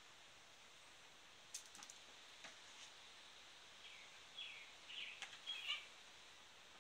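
Faint bird chirps: a cluster of short, high, falling chirps near the end, over a quiet background, with a few light clicks about a second and a half in.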